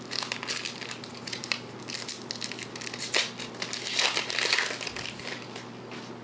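Foil wrapper of a trading card pack crinkling as it is torn open by hand, loudest a few seconds in and fading near the end.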